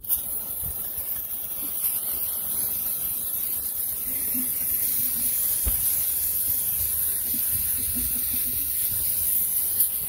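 Aerosol can of brake cleaner spraying in one continuous high hiss, starting abruptly. It is washing leaked engine oil off the oil pan and oil filter area.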